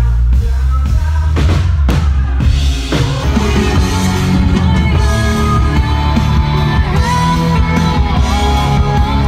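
Upbeat pop music with a heavy bass line, a drum beat and singing.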